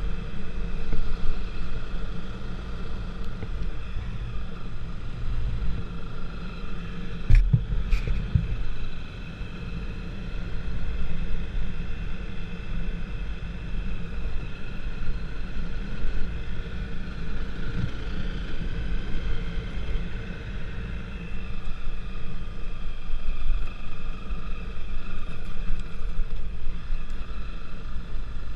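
A motor vehicle's engine running steadily with a deep rumble and a higher droning tone. Two sharp knocks come about seven and eight seconds in.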